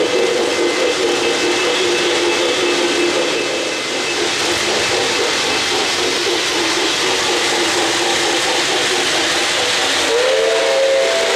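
O-gauge model trains running on three-rail track, with a steady hiss of wheels and rolling stock. A held chord tone fades out a few seconds in, and near the end a model locomotive's sound system gives a two-note whistle that slides up in pitch and holds.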